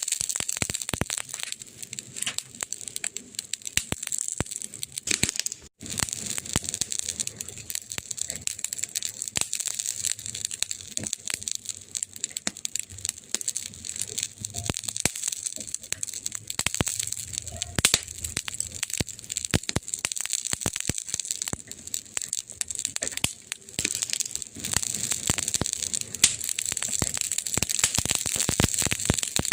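Wood fire crackling in a fireplace: a dense run of irregular sharp pops and snaps over a steady hiss, cutting out for an instant about six seconds in.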